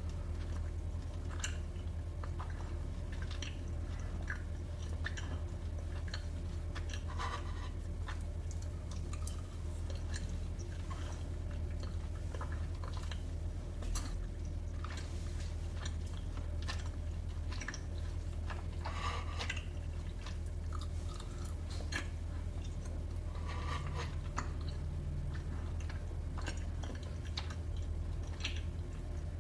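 Close-miked chewing and biting of dessert, with many small crunches and wet mouth clicks scattered irregularly, over a steady low hum.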